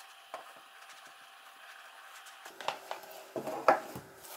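Cardboard gift box being opened by hand: the lid is pulled off the base and both halves are set down on a wooden table, giving soft handling sounds and a few light taps, the loudest about three and a half seconds in.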